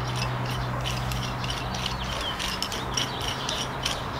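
Small metal clicks and light clinks as a threaded rod end and nuts are turned and handled on an anti-roll bar link, over a steady low hum.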